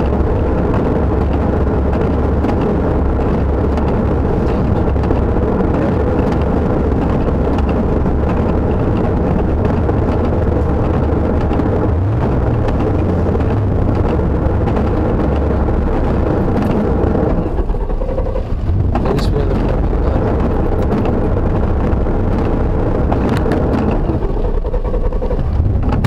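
Dodge Dakota pickup driving, heard from inside the cab: a steady engine and road rumble. The engine note briefly rises and falls twice, about halfway through and near the end.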